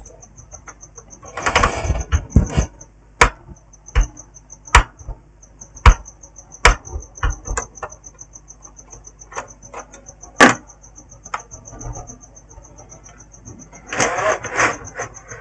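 Plastic clicks and snaps of a laptop's back cover being pried off its clips, with two stretches of scraping, about two seconds in and near the end.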